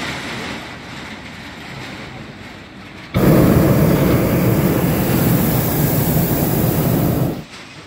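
Hot-air balloon's propane burner firing in one blast of about four seconds, starting suddenly about three seconds in and cutting off suddenly near the end.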